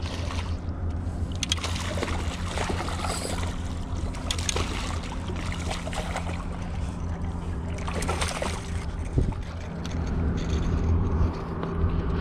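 A hooked smallmouth bass splashing at the water's surface as it is reeled in to the rocky shore, in several bursts of splashing over a steady low hum.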